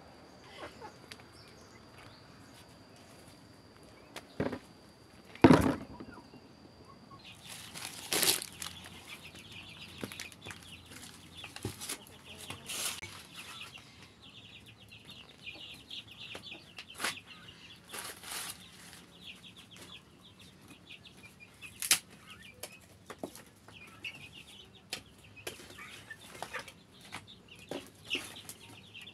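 A wood cooking fire crackling and hissing, with occasional sharp knocks and clicks, and chickens clucking now and then in the background.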